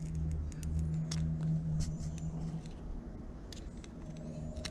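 A few faint, light clicks of small plastic retaining tabs being pried, over a steady low hum that fades out partway through and returns near the end.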